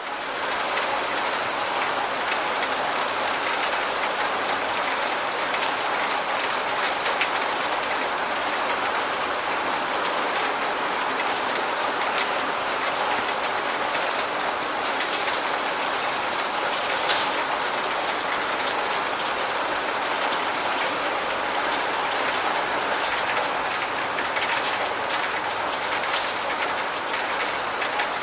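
Steady rain falling, an even hiss with many individual drop hits ticking on a surface.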